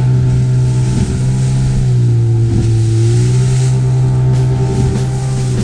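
Outboard motor of an inflatable boat running steadily at speed, with water and wind rushing past the hull. The engine note dips briefly and recovers about halfway through.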